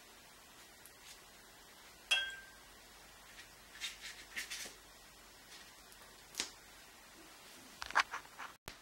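Short, faint scratches of a watercolour brush stroking across paper, a handful of separate strokes a second or two apart, with a brief ringing tap about two seconds in.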